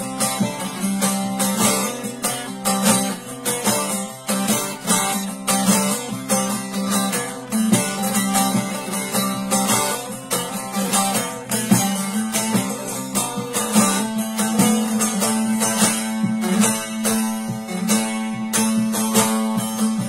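Bağlama (long-necked saz) played solo in an instrumental passage: quick plectrum strokes in a steady stream over a constant low drone note.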